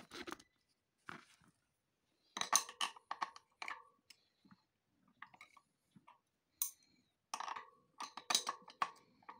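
Steel spanners clicking and clinking against the axle and small cover bolts of an e-bike hub motor as the bolts are undone, in scattered groups of clicks, some with a short metallic ring.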